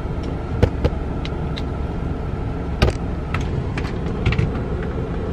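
Steady low hum of a car idling, heard from inside its closed cabin, with a few light clicks.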